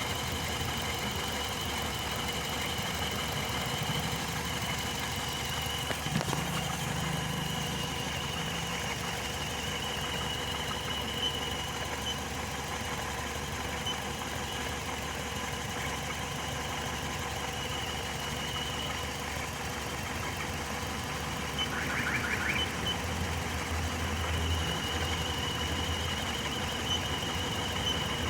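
2005 Hyundai Matrix engine idling steadily; the car has a misfire on cylinder 2 (code P0302). The low hum grows a little stronger in the last few seconds.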